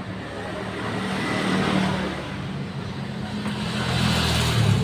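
A motor vehicle engine running, swelling louder twice.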